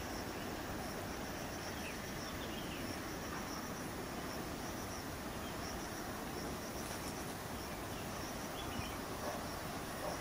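Insects chirping outdoors: a high, pulsing chirp that repeats evenly and steadily, over a constant background hiss.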